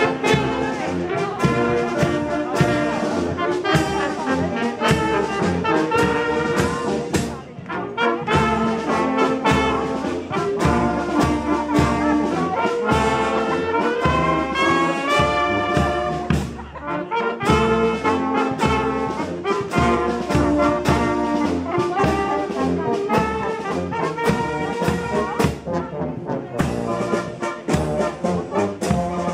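Brass marching band playing a march as it passes: trombones, trumpets, saxophones and tuba over a steady bass-drum beat, with brief breaks between phrases about 7 and 17 seconds in.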